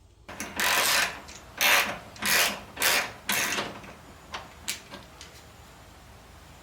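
Hand-tool work on an engine being torn down: about five short, loud rasping strokes in quick succession, followed by a few light clicks.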